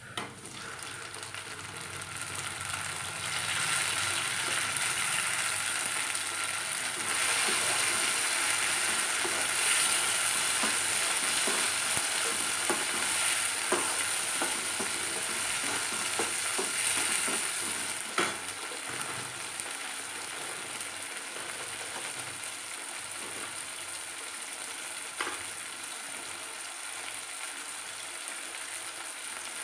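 Chopped tomatoes and onions sizzling in hot oil in a kadai, with a perforated metal skimmer clinking and scraping against the pan as they are stirred. The sizzle builds over the first few seconds and is loudest through the first half, then settles to a steady, softer frying.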